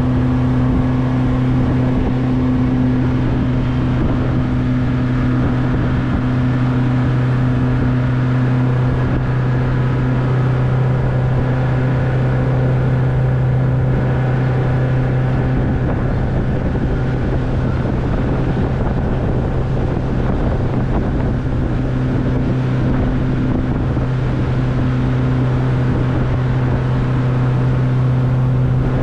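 Outboard jet boat engine running at a steady, unchanging speed, a constant hum with no revving.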